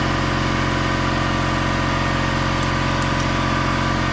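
Garage air compressor running steadily, a constant loud motor drone with an even hum.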